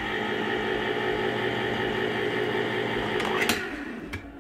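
Electric can opener's motor running with a steady hum as it turns the can against the cutter, then stopping with a click about three and a half seconds in. A second light click comes shortly after.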